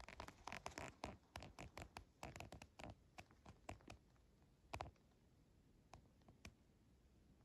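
Faint scratchy crunching and rustling of a hiker moving through snow, a quick cluster of crunches for about three seconds, then a few single crunches.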